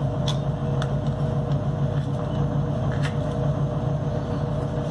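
A steady low mechanical hum with a faint higher tone, with a few light clicks of a metal knife and cake server against an aluminium baking pan as a slice of bread is lifted out.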